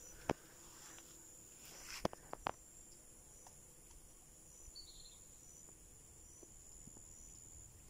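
Quiet waterside ambience with faint, steady high-pitched insect chirring, likely crickets. A few sharp clicks or taps sound right at the start and a cluster of them about two seconds in.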